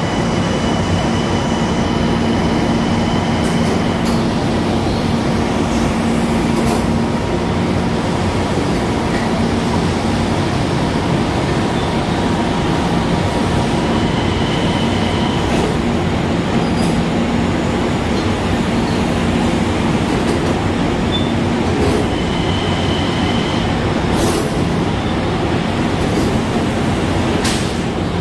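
Long Island Rail Road electric multiple-unit train moving slowly through an underground station: a steady rumble of the cars with a low motor hum, and a high wheel squeal that comes and goes a few times. Occasional sharp clicks sound over it.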